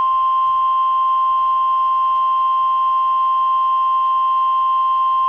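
NOAA Weather Radio warning alarm tone: a single steady beep near 1 kHz, held without a break, signalling that a warning broadcast is about to follow.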